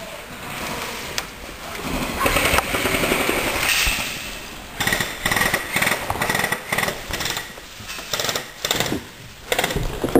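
Airsoft guns firing in rapid full-auto bursts, a fast rattling clatter that comes in short runs through the second half.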